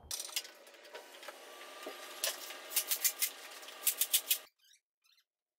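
Hand tools and metal parts clicking and clinking during work on an engine: a run of sharp, irregular clicks, bunched toward the second half, over a faint steady background, cutting off suddenly.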